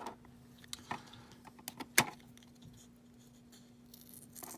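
Hard plastic coin slabs clicking and knocking as they are handled, with a few small clicks and one sharper knock about two seconds in, and light rustling near the end. A faint steady hum sits underneath.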